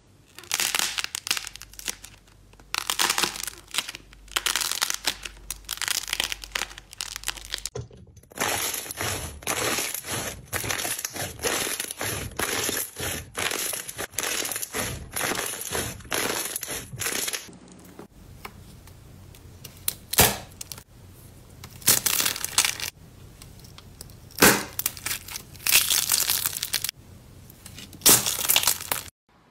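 Slime being squeezed, pressed and poked by hand: a series of squishy, noisy presses. In the middle stretch it becomes a run of quick, even strokes, about two a second.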